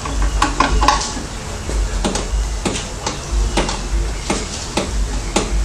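Hand tools working on a Briggs and Stratton V-twin engine: a string of irregular clicks and knocks, several in quick succession, with handling noise underneath.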